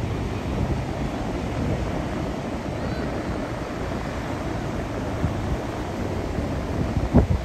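Wind buffeting the microphone in a low, steady rumble over choppy surf breaking on the shore, with a sharper gust hitting the microphone near the end.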